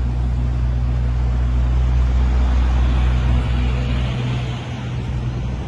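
A parked ice cream truck idling, a steady low engine hum with city street noise, fading about four seconds in.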